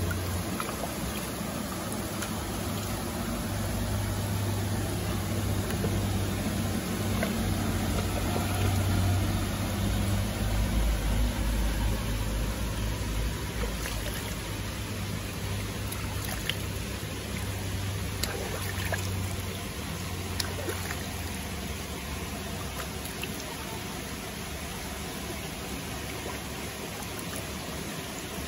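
River water running and trickling, with a few faint clicks, under a low steady hum that fades away about two-thirds of the way through.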